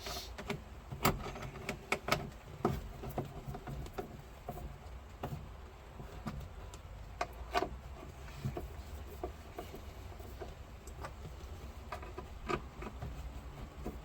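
Scattered light clicks and taps of hand work on a glove box liner going into a car dash, over a steady low hum.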